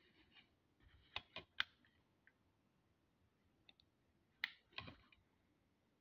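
Faint clicks and light knocks from two handheld flashlights being picked up and handled: a quick run of three clicks about a second in, then two more about four and a half seconds in, the second a duller knock.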